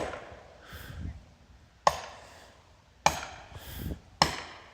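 Four sharp blows about a second apart, each with a short ringing tail: a felling wedge being struck to drive it into the saw cut of a big tree whose chainsaw bar is stuck.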